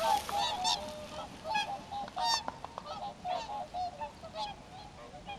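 A flock of swans calling in flight: many short calls overlapping one another, thinning out toward the end.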